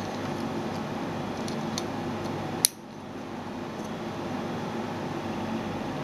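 Faint clicks and one sharp plastic click, about two and a half seconds in, as a network cable tester and its RJ45 plugs are handled. Under them is a steady room hum like a fan or air conditioner.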